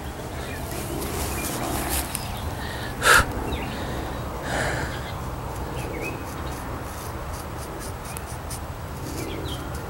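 Faint dry crackling of a knife blade shaving arm hair, with a brief loud burst of noise about three seconds in and a few faint bird chirps.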